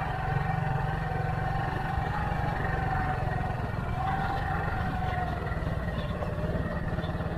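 Motorcycle engine running steadily, its note rising and falling a little.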